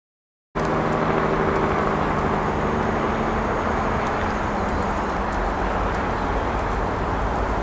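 Silence, then about half a second in a steady outdoor rushing noise with a deep rumble starts, and a low hum fades out over the first few seconds. Faint hoofbeats of a trotting horse on sand tick through the second half.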